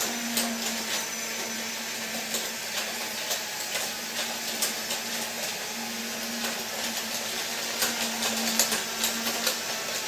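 Small electric motors of toy Disney monorail playset trains running along their plastic track, a steady whirring with a low hum that comes and goes and scattered clicks and rattles, more of them near the end.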